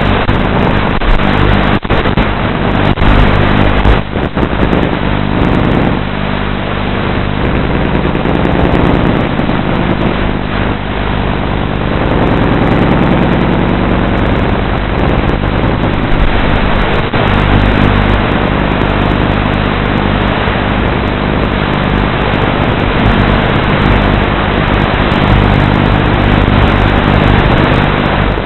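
Electric motors and rotors of a 450-size radio-controlled model aircraft hovering, heard from its onboard camera as a steady motor hum with rushing air noise over it.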